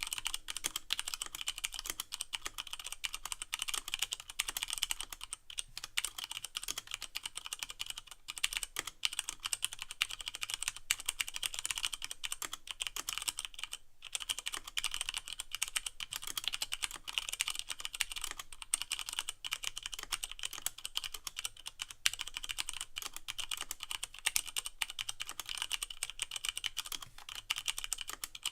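Fast continuous typing on a Leopold FC660M mechanical keyboard with Cherry MX Brown switches and no O-rings, the keys clacking as they bottom out, with brief pauses about five seconds in and halfway through.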